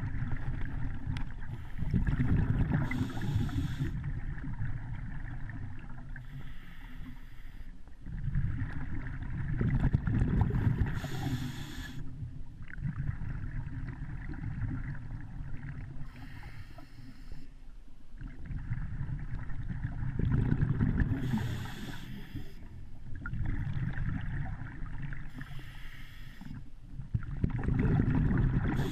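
Muffled underwater water noise: a low rumble that swells and fades about every eight to ten seconds, under a steady hiss.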